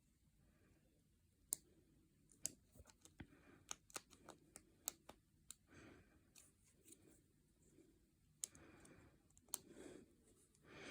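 Small plastic model-kit parts clicking and tapping against each other as they are handled and dry-fitted together: about a dozen faint, sharp ticks at irregular intervals.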